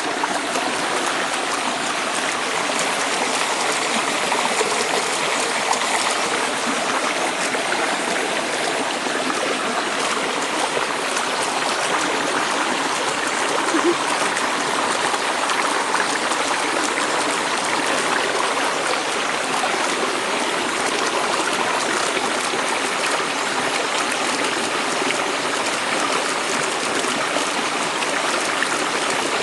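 Shallow stream water running steadily over a clump of twigs and dead leaves, close by.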